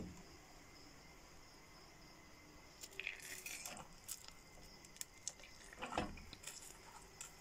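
Faint kitchen handling noise: scattered light clicks, clinks and rustles, with a dull knock about six seconds in.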